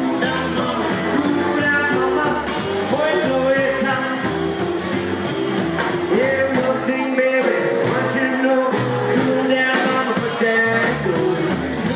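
Live rockabilly band playing an upbeat number: electric and acoustic guitars, upright double bass and drums keeping a steady beat.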